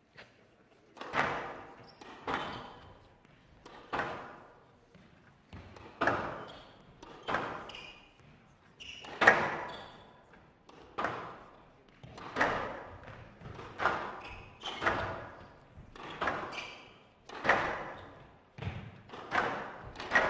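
Squash rally: the hard rubber ball struck by rackets and smacking the walls of a glass court, sharp cracks about once a second with a hall echo after each. It starts about a second in, after a short lull at the serve.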